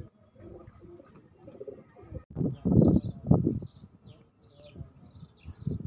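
Birds calling outdoors: short high chirps repeating all through, with louder low sounds in the middle.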